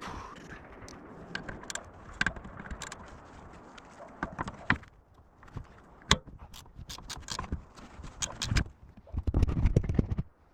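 Hard metal clinks and knocks of hand tools and parts being handled, with scrapes in between. A dense, loud run of clattering comes near the end.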